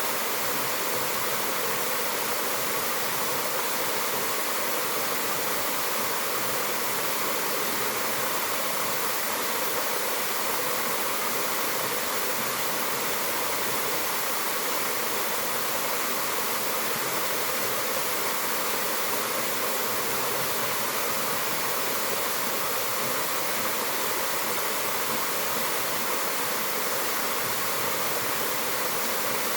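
Mountain waterfall: falling water pouring and splashing in a steady, unbroken rush, bright and hissy across the highs.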